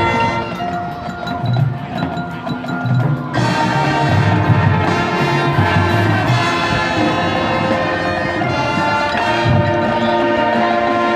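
Marching band playing sustained chords over a steady percussion beat; the band swells to a fuller, brighter sound about three seconds in.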